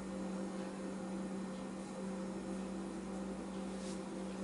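Steady low electrical hum over a faint hiss of room noise.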